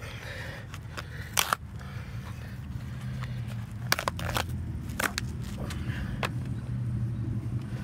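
Worn leather boat shoes being pulled off and handled over asphalt: a few sharp knocks and scuffs, about a second and a half in and again around four to five seconds in, over a steady low hum.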